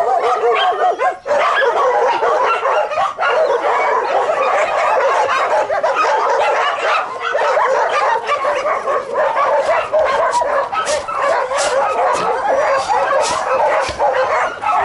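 Many dogs barking, yipping and whining at once, excitedly and without a break, with a few sharp clicks near the end.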